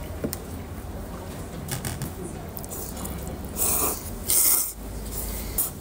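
Cold soba noodles slurped from the dipping cup: two loud slurps about three and a half and four and a half seconds in, with a shorter one near the end. Before them come a few light clicks of chopsticks against the ceramic cup.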